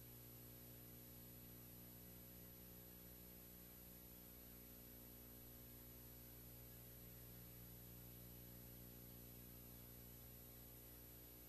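Near silence: a steady low electrical hum with faint hiss, unchanging throughout.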